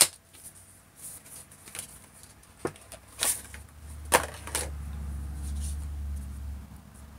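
Cardboard packaging of an eyeshadow palette being handled and worked open: light rustling with a sharp click at the very start and several more clicks and taps, the loudest about four seconds in, over a low rumble in the second half.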